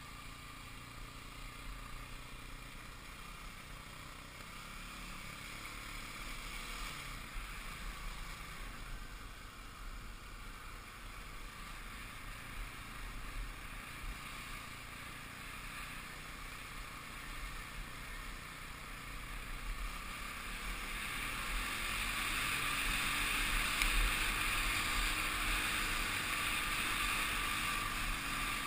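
Kawasaki KLX250 dirt bike's single-cylinder four-stroke engine running steadily as the bike rides along a dirt trail. The sound grows louder from about twenty seconds in.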